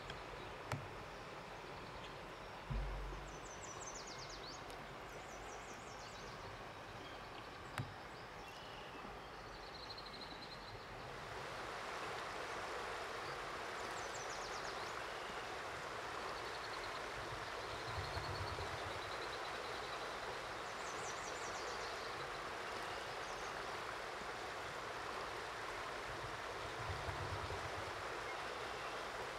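Steady rush of a flowing river, getting fuller and louder about eleven seconds in, with bird calls now and then. A few light knocks come in the first seconds.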